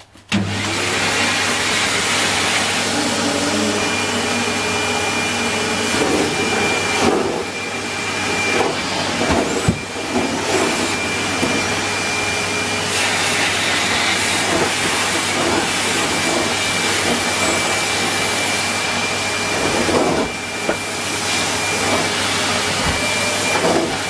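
Numatic Henry vacuum cleaner switched on just after the start, then running steadily with a low motor hum and a thin high whine, its floor tool sucking up shredded paper from the carpet.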